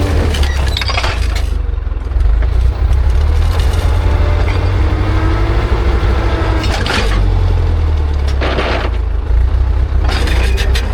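Ursus C-360 tractor's four-cylinder diesel engine running steadily under load while pulling a disc harrow. Four short bursts of crunching, rattling noise come from the harrow discs working the soil.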